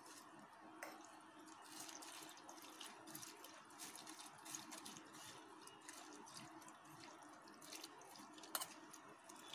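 Faint trickling and dripping of water poured from a plastic jug over poha (flattened rice) in a steel mesh strainer, running through into the bowl beneath, with scattered light clicks of a steel spoon stirring against the mesh.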